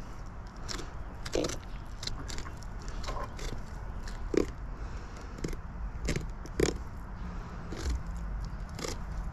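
Knife cutting along a longnose gar's tough, armoured scaly hide, giving irregular crunching clicks as the blade works through the skin and scales.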